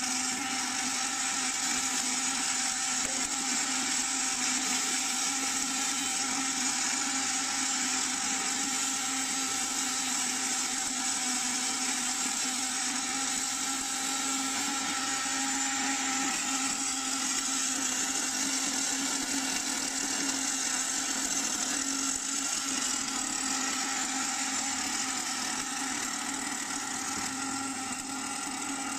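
Automatic circular seam welding machine welding around a rotating gas tank shell: the steady hiss and crackle of the welding arc over a constant machine hum with a few fixed tones.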